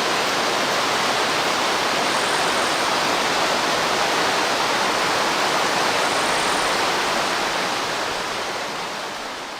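River water rushing steadily, fading out over the last couple of seconds.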